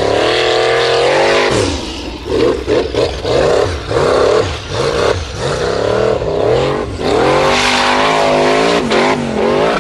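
Formula Offroad race buggy engine revving hard under full load on a steep hill climb. The revs rise and fall in quick surges through the middle, then hold high for a couple of seconds before dropping near the end.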